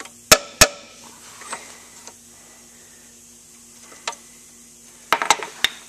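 Hammer tapping on the piston and ring compressor as a piston is worked down into a cylinder of a 1939 Farmall F-20 engine: two sharp taps near the start, then a quick run of lighter taps about five seconds in.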